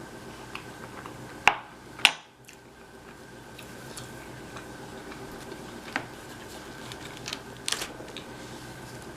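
Eating sounds: a handful of sharp clicks of cutlery against a dish or food container, the two loudest close together near the start and a few softer ones later, over a steady low room hum.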